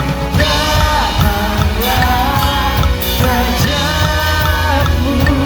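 Rock-pop song with a sung lead vocal coming in about half a second in, over a drum kit played at a quick 148 BPM beat.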